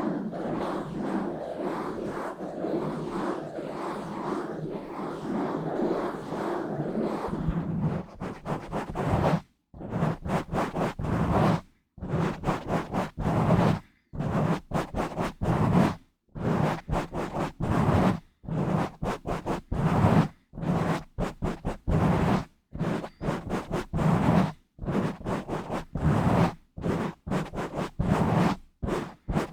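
Fingers rubbing and scratching directly on a microphone. The rubbing is continuous for the first several seconds, then turns into bursts of scratching a second or two long with brief silent gaps between them.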